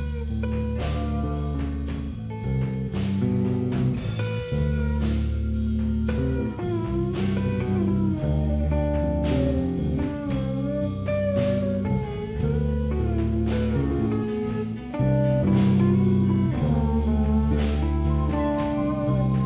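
Instrumental psychedelic rock jam: guitar lines over sustained low notes and a drum kit keeping a steady beat.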